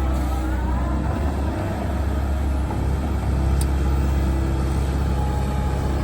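Komatsu PC130 hydraulic excavator's diesel engine running steadily as the machine works. A faint whine rises in the first second.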